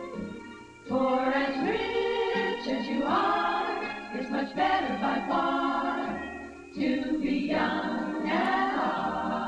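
A group of women singing together, one phrase coming in loudly about a second in and another near seven seconds in.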